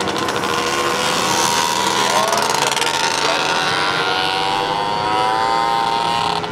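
Several youth speedway motorcycles racing together, their engines at high revs, the pitches of the different bikes overlapping and rising and falling as they throttle and pass.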